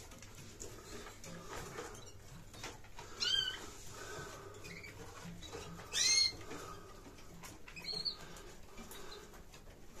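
Caged canaries giving three short chirping calls, about three, six and eight seconds in, the one near six seconds the loudest.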